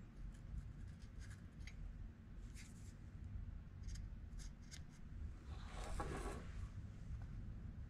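Felt-tip marker scratching against a headlight bucket as cut-out positions are marked, with light clicks from the headlight and bucket being handled and a longer rubbing sound about six seconds in. A low steady hum runs underneath.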